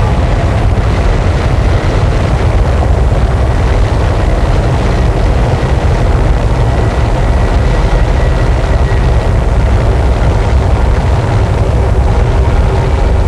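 A loud, dense, unchanging wall of distorted noise with a heavy low rumble and a few faint steady tones buried in it. This is harsh noise wall music.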